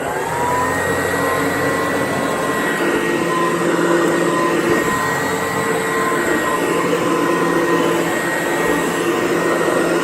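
Kirby 561 upright vacuum cleaner finishing spinning up as it is switched on, then running steadily at full speed with a steady high whine over its motor noise. The unit is unoiled and not yet restored.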